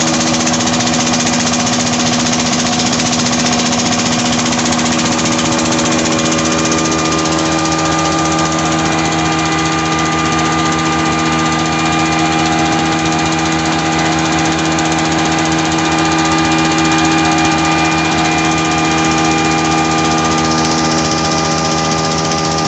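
25 HP Petter-type diesel engine running steadily under load, driving a flour mill (atta chakki) by flat belt; the engine note holds even, with the mill turning alongside it.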